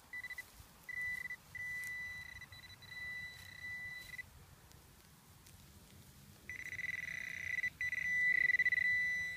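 Garrett Pro-Pointer metal-detecting pinpointer sounding its high, steady alert tone in broken stretches as it is worked through loose soil. The tone stops for about two seconds in the middle, then comes back louder and longer near the end, the sign that the probe is right on a buried metal object.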